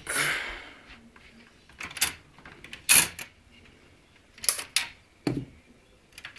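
Hands handling and fitting parts in a computer case: a brief scraping rustle, then a string of sharp clicks and knocks, the loudest about three seconds in.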